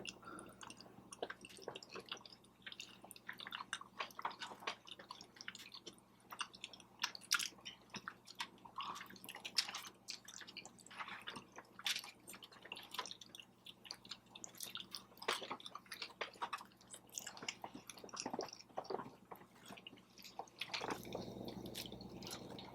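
A person chewing food with the mouth close to the microphone: irregular wet clicks, smacks and squishes, several a second, fairly faint.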